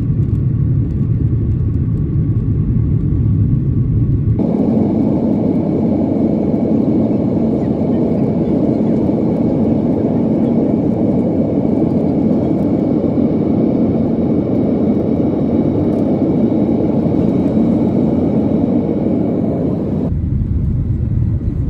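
Boeing 737-900 cabin noise at a window seat during the climb after takeoff: steady jet engine and airflow noise. The sound changes abruptly about four seconds in, to a brighter roar with faint steady whining tones, and again near the end, back to a deeper rumble.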